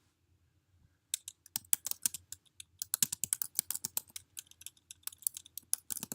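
Typing on a computer keyboard: a fast, uneven run of key clicks starting about a second in.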